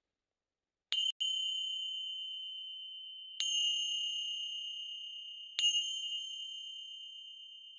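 A pair of TreeWorks TRE-FC02 finger cymbals struck together three times, about two and a half seconds apart, the first hit a quick double touch. Each strike rings on in a clear, high, steady tone that slowly fades and overlaps the next.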